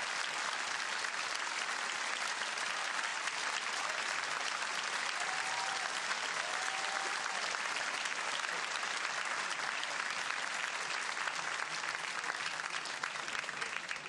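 Theatre audience applauding steadily after the close of a play. A couple of faint calls rise from the crowd about five and six seconds in. The clapping begins to die away right at the end.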